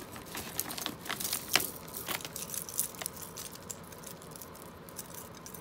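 Metal costume jewelry being handled and sorted: small clinks and rustles, busiest in the first three seconds, with one sharper click about a second and a half in.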